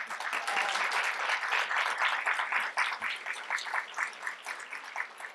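Audience applauding: dense clapping from many hands that starts at once and thins out near the end.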